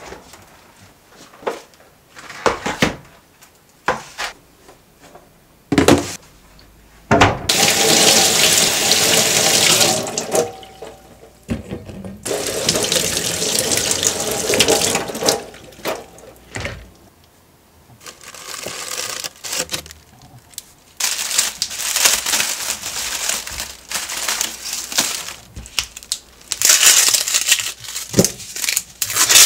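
Kitchen tap running into a stainless steel sink in long bursts as leafy greens are rinsed under it, after a few short clicks and knocks of handling. Near the end comes the crackle of dry onion skin being peeled over the sink.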